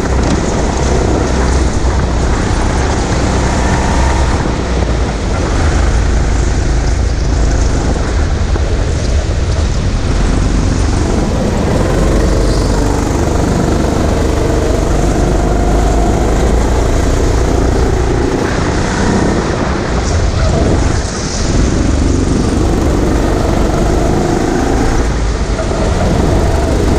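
Sodikart rental go-kart driven at speed around the track, its motor running under load and mixed with wind rush on the onboard microphone.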